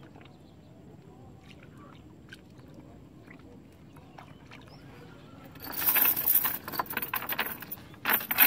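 Faint ticks and clicks for the first half, then a loud metallic rattling, with a second burst near the end, as a cast net's chain weights are hauled over the side of a wooden boat.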